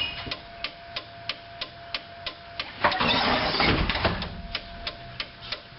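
Relays of a Blue Bird school bus's warning-light system clicking steadily, about three clicks a second, as the flashers cycle, over a faint steady tone. About three seconds in, a louder rushing noise lasts a little over a second.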